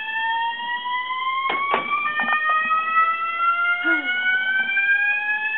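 Building fire alarm sounding: an electronic tone that slowly climbs in pitch, with a second tone joining about two seconds in, and a couple of brief knocks about one and a half seconds in. It is a repeated false alarm.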